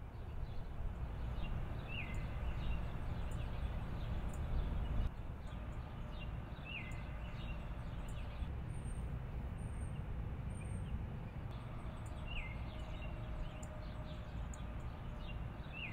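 Outdoor ambience: a low steady rumble with birds chirping over it, one bird repeating a short call that dips in pitch about every five seconds, and a few higher chirps in the middle. The rumble drops a little about five seconds in.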